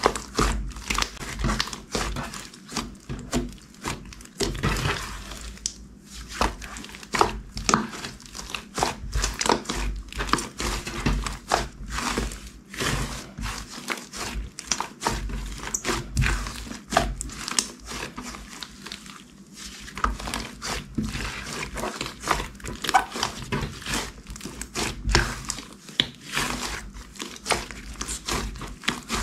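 Glossy clear slime being squished and stretched by hand: a dense run of irregular sticky crackles and pops, with soft low thumps.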